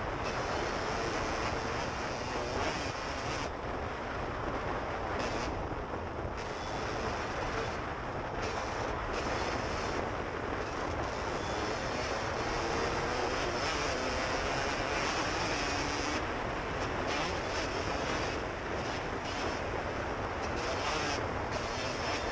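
Suzuki RM125 single-cylinder two-stroke dirt bike engine running steadily under way, with heavy wind rushing over the helmet camera's microphone.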